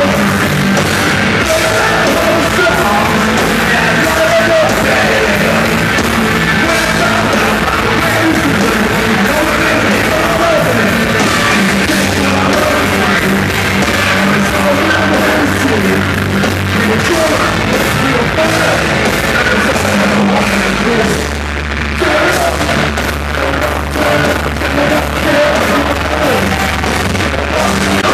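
Live loud rock band playing a song with shouted vocals, guitars and drums. The low notes shift and the loudness briefly dips about 21 seconds in.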